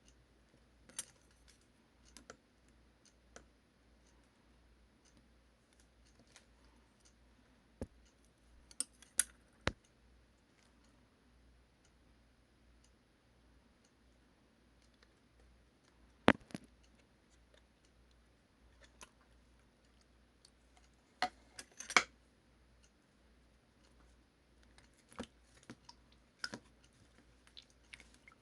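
Sparse sharp clicks and taps, single or in quick little clusters, spread out over a quiet background, the loudest ones around a third of the way in and about three quarters of the way through.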